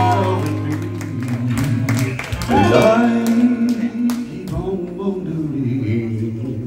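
Live band music with singing and sustained, bending sung notes.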